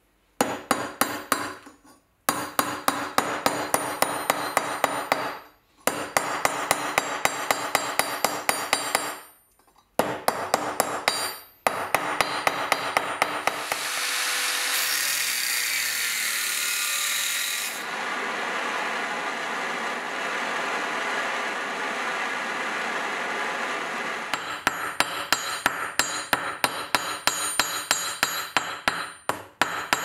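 A steel hammer striking rusty metal on a small steel anvil, in quick runs of blows with short pauses. About halfway through, an angle grinder cuts the metal for about ten seconds, loudest for its first few seconds. The hammering on the anvil then resumes.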